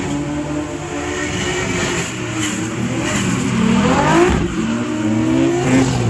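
Drift cars' engines revving hard, the revs climbing steeply about four seconds in and again near the end.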